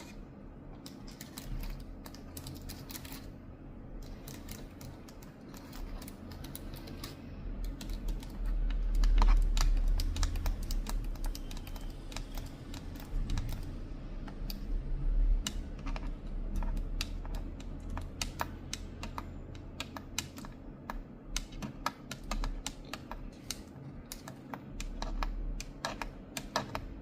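Typing on a computer keyboard with long fingernails: quick, irregular clicks of nails and keys, sparse at first and denser in the second half. A low hum runs underneath, swelling into a low rumble for several seconds about a third of the way in.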